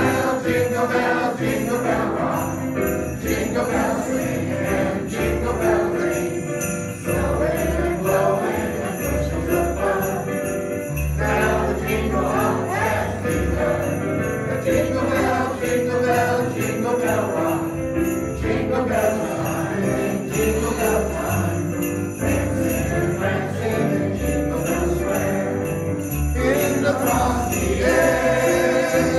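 A man and a boy singing a Christmas song as a duet into microphones, over instrumental accompaniment with jingle bells and a steady bass beat.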